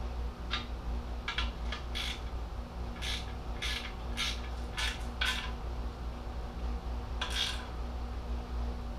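Small hand socket wrench working a shield's nuts: short, irregular metallic clicks and clinks, about ten in all, over a steady low hum.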